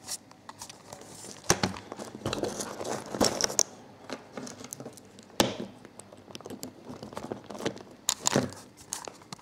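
Handling noise from swapping the receiver's power battery: scattered sharp clicks and knocks with bits of rustling as a LiPo pack and its connector are unplugged and plugged in.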